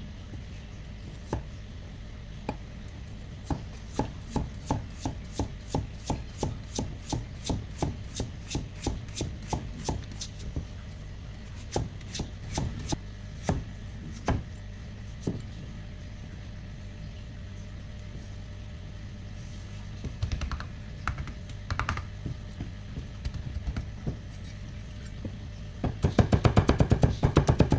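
Kitchen knife chopping potato on a cutting board, cutting it into fine shreds, in runs of even strokes about three a second. Near the end comes a fast, louder run of rapid chopping.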